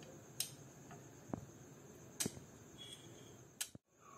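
Star-shaped cookie cutter pressing through set jelly and tapping the plastic dish: four faint, sharp clicks about a second apart.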